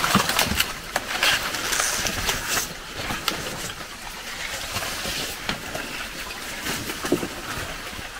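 A small boat being paddled through dense swamp plants: the paddle dips and splashes in the water while stiff leaves brush and scrape past the hull, with scattered small knocks and clicks.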